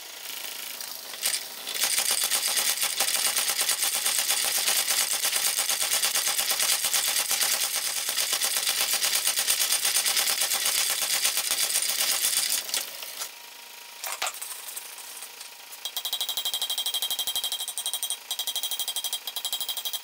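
Power hammer pounding a red-hot iron bar in rapid, even blows for about ten seconds, then stopping. A few seconds later a hand hammer strikes the bar over the anvil horn in quick, ringing blows.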